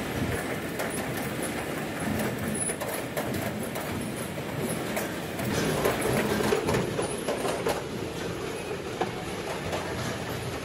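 Mango packing-line roller conveyor running, a steady mechanical rattle with scattered knocks of fruit against the rollers.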